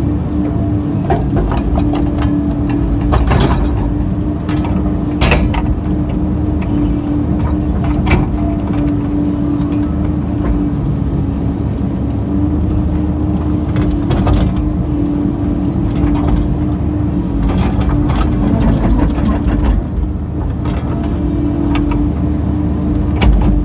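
Kobelco excavator's diesel engine and hydraulics running steadily under load, heard from inside the cab, with a steady hum throughout. Occasional sharp knocks come through as the bucket and hydraulic thumb grip, lift and shake out a tree stump.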